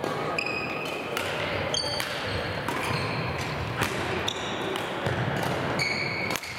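Badminton play in a large hall: a series of sharp racket strikes on the shuttlecock, mixed with short high squeaks of court shoes on the wooden floor, with faint voices in the background.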